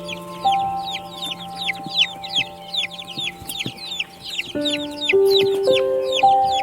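Many small chicks peeping continuously: quick high calls, each falling in pitch, several a second. Underneath, calm music of long held notes, with a rising run of new notes starting a little past the middle.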